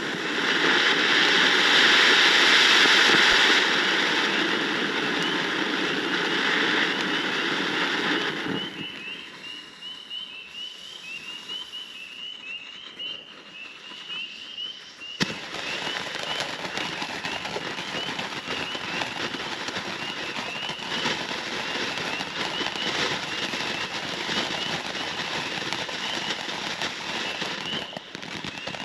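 Dog-shaped firework fountain spraying sparks with a loud, even hiss that drops off after about eight seconds. About fifteen seconds in comes a sharp pop, then a steady crackling hiss.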